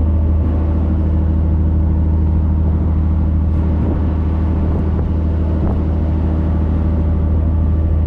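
Boat engine running at a steady speed, a constant low drone, with water rushing along the hull.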